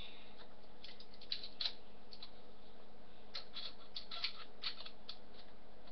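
Small metal Allen keys clicking and clinking as they are handled, in two scattered bunches of light sharp clicks.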